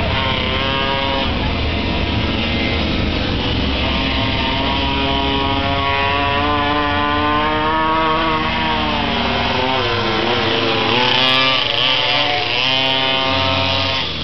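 Minimoto pocket bikes' small two-stroke engines racing, several at once, whining high with pitch rising and falling as they rev out and back off, with a deep drop and climb about ten seconds in.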